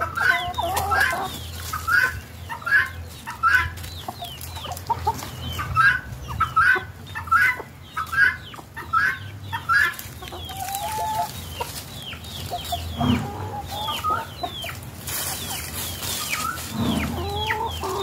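Free-range chickens clucking and calling, short sharp calls repeating about twice a second for the first half, then sparser, with a few lower calls later on.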